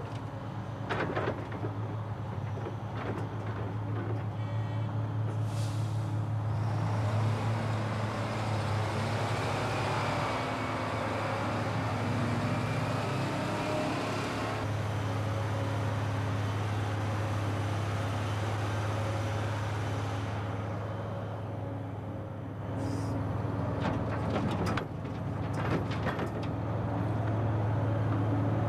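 Heavy diesel engines of a Terex dump truck and a tracked excavator running steadily, growing louder for several seconds while the truck moves, with a few sharp clanks and knocks.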